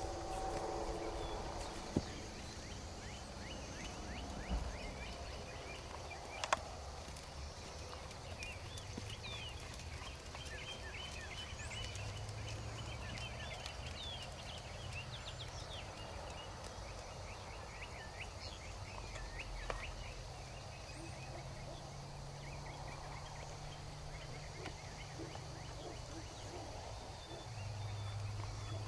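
Birds calling in the background with many short quick chirps over a low steady rumble, with a few sharp clicks.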